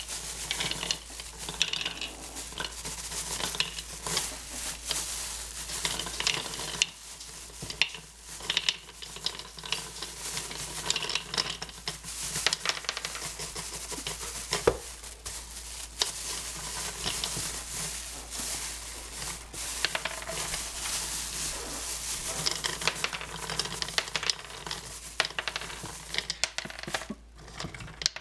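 Whole hazelnuts poured from a crinkling plastic bag into the plastic bowl of a mini food chopper, rattling and clicking against the bowl and each other in an irregular stream of small taps.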